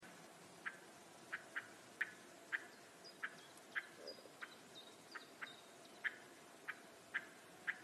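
A bird giving short, sharp calls over and over, one or two a second. Another bird adds a few faint higher whistles in the middle.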